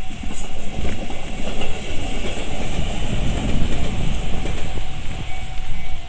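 Tobu electric train running over a level crossing, a rumble with wheel clatter that swells mid-way and then eases. The crossing's warning bell rings again near the end.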